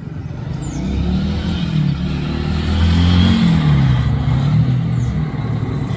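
A motor vehicle's engine running close by, growing louder over the first three seconds, its pitch rising and falling as it revs. A few short high bird chirps sound faintly behind it.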